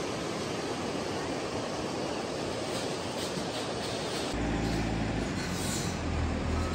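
Rushing river rapids over boulders, a steady noise. About four seconds in, a low engine rumble joins in, from the excavator working beside the river.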